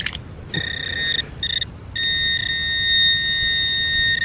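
Metal-detecting pinpointer sounding a high, steady electronic tone as it signals a strong metal target: two short beeps, then one held tone for the last couple of seconds.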